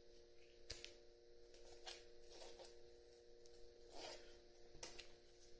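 Near silence: a few faint clicks and soft rustling as a wristwatch is taken off the wrist, over a faint steady hum.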